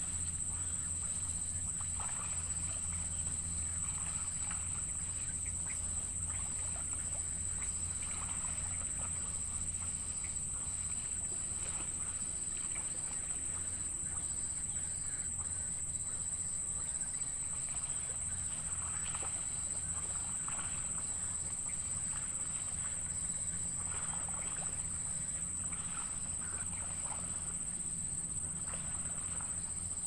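Steady high-pitched insect drone from the surrounding field, with a low steady hum underneath and faint scattered short calls.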